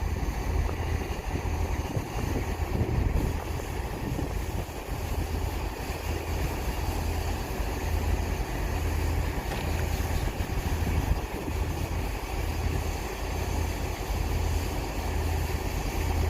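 CrossCountry Voyager diesel multiple unit's underfloor diesel engines idling at the platform: a steady low throb with a constant rush of noise above it.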